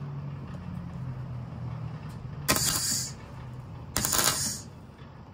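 Workshop noise: a steady low hum, with two short, loud hissing bursts about a second and a half apart, each lasting about half a second.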